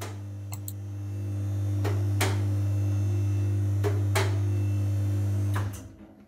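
Electric motor of a car lift running as it raises the car, a steady hum that gets louder about a second in, with several sharp clicks along the way. The motor stops shortly before the end.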